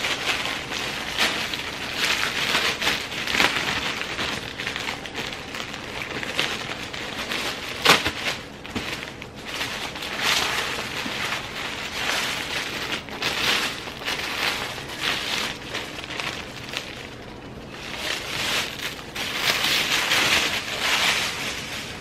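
Clear plastic packaging bag crinkling and rustling as it is handled and pulled open, in uneven bursts, with one sharp snap about eight seconds in.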